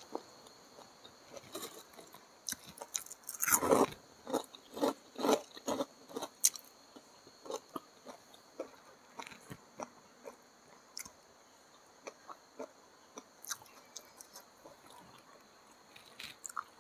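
Close-miked mukbang chewing of a handful of rice and crispy fried batter crumbs (kremesan), with a run of loud crunching chews a few seconds in, then softer, sparser mouth clicks and chews.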